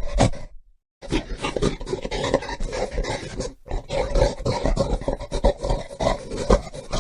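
Gorilla vocalizing: a dense run of short, rough calls, broken by a brief silent gap just under a second in.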